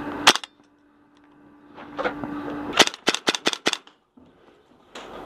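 Airsoft rifle fire: a single sharp crack, then a rapid string of about six or seven shots in about a second.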